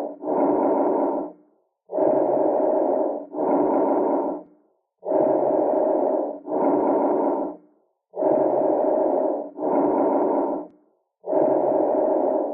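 Bronchovesicular breath sounds, a normal breath sound. There are about four breath cycles, each an inhalation and an exhalation of about equal length separated by a short pause, repeating at an even pace.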